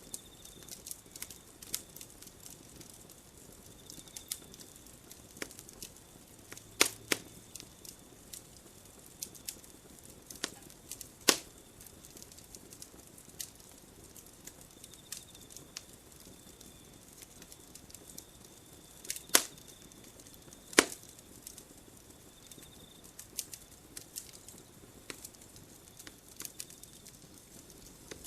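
Wood campfire crackling: irregular sharp snaps and pops over a soft hiss, with a handful of much louder pops scattered through.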